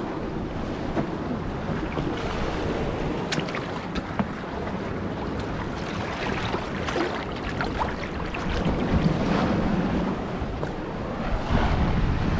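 Sea water washing and sloshing among shoreline boulders, with wind buffeting the microphone and a few sharp little splashes and clicks.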